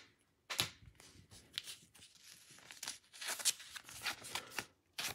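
Trading cards and clear plastic card holders being handled: soft rustling and scraping of card against plastic, with a sharper tick about half a second in and a busier stretch of rustling near the end.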